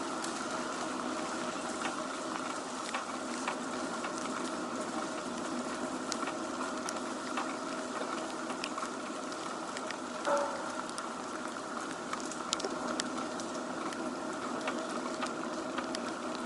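Rain from a typhoon pattering steadily, with scattered drops ticking sharply, over a steady background din. A brief higher sound stands out about ten seconds in.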